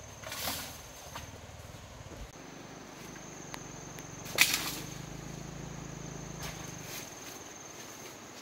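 A few sharp chopping strikes, the loudest about four and a half seconds in, over a steady high-pitched insect drone.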